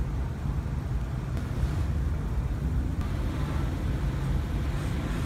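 Steady low rumble of a car engine idling.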